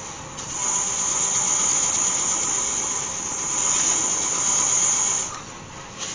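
A cloth held against a spalted beech bowl spinning on a wood lathe, buffing in wax polish: a steady friction hiss that starts about half a second in and eases off a little before the end, as the cloth is pressed on and then lifted.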